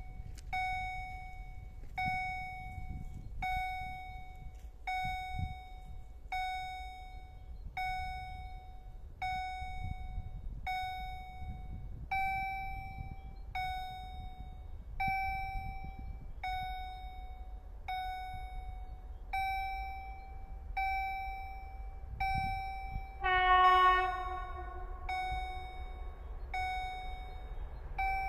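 Level-crossing warning bell ringing, one ringing strike about every second and a half, warning that a train is approaching. A low rumble runs underneath, and near the end a locomotive horn gives one short blast, the loudest sound.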